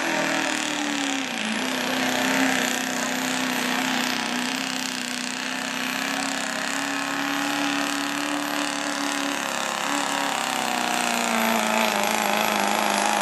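Chevrolet Silverado turbo-diesel pickup engine running flat out under the load of a pulling sled, with a high steady turbo whistle above the engine note. The engine note sags slightly about a second in and again near the end as the sled bears down.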